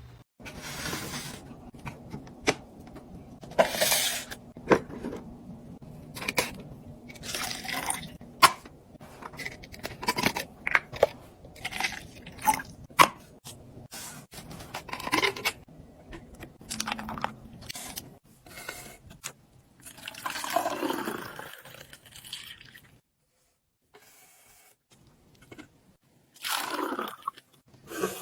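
Containers and packaging being handled while a mini fridge is restocked: sharp clicks and knocks of items set down, mixed with short rustles. About twenty seconds in, a longer stretch of liquid sound slides down in pitch, followed by a few seconds of near silence.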